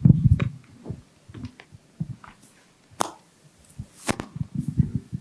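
Handheld microphone being handled and passed along: heavy low thumps and rubbing at the start, then scattered knocks with two sharp clicks about three and four seconds in, and rubbing again near the end.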